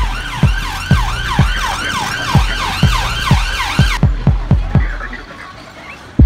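Electronic dance music: a steady kick drum about twice a second under a repeated siren-like falling synth sweep. From about four seconds in the high part drops away and the track fades down, then comes back loud just at the end.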